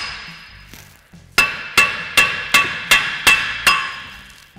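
Hammer striking the back of a rusted-in front wheel hub and bearing assembly to drive it out of the steering knuckle. After about a second of dying ring, about seven sharp metallic blows follow, roughly two and a half a second, each ringing.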